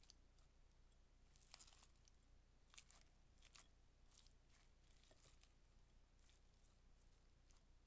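Faint, irregular squelching and crunching of a spatula tossing mayonnaise-dressed shredded cabbage, onion and squid rings in a glass bowl.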